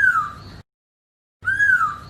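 Chinese hwamei (poksay hongkong) calling: a clear, slurred whistle that rises and then falls, given twice with a dead-silent break between.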